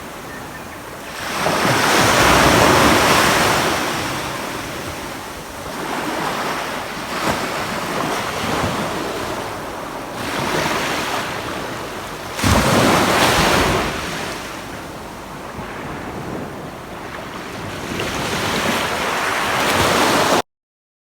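Ocean waves breaking and washing up a beach in repeated surges, the loudest about two seconds in and another starting suddenly about twelve seconds in; the sound cuts off abruptly just before the end.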